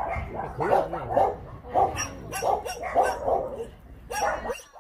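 Shelter dogs barking, a quick run of about a dozen barks that eases off near the end.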